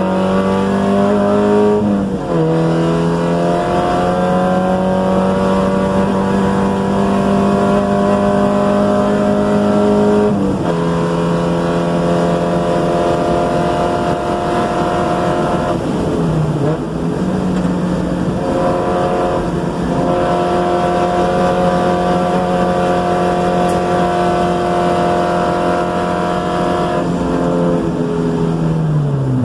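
1990 Mazda Miata's 1.6-litre four-cylinder engine at full throttle, heard from inside the cabin, its pitch climbing steadily with a sharp drop at each of two upshifts. A brief dip comes about midway, and the pitch falls away near the end as the car brakes for a corner.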